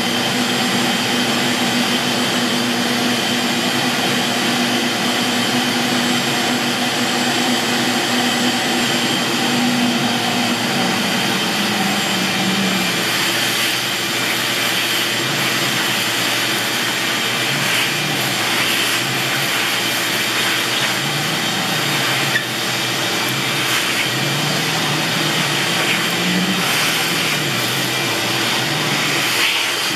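Shop vacuum running steadily, drawing through a Dust Deputy cyclone separator. From about halfway, its hose is worked over a freshly cut walnut grille, sucking up sawdust with scratchy, rattling ticks as chips go up the hose.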